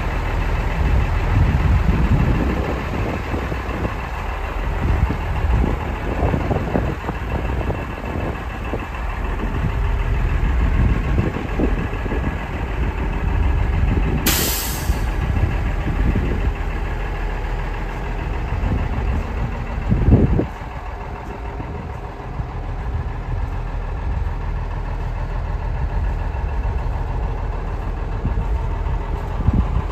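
Diesel engine of a 1991 Ford L8000 truck idling steadily, with wind buffeting the microphone. A short sharp hiss of air comes about halfway through, typical of the truck's air-brake system venting, and a single thump comes a little later.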